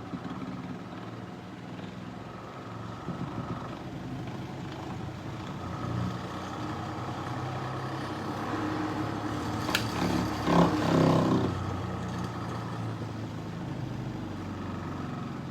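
Motor of a homemade DeWalt-powered lapidary grinder running at speed with a steady hum. A sharp click comes just before ten seconds in, followed by a louder, rougher stretch lasting about a second.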